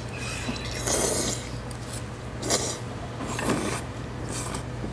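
A person slurping thick udon noodles from a spicy cheese udon-tteokbokki dish, about four short hissing sucks, the first, about a second in, the longest.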